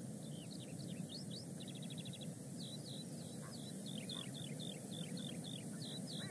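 A small songbird singing: repeated short, high, falling notes and quick trills, over a steady low outdoor background rumble.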